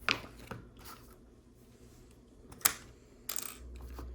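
Small plastic Lego pieces being handled: a few light clicks and taps, the sharpest about two and a half seconds in, with a short cluster of clicks a little later.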